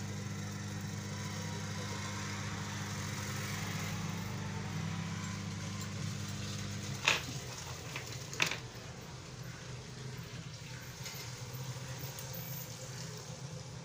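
A low steady machine hum with a hiss that cuts off suddenly about seven seconds in, followed by two sharp clicks.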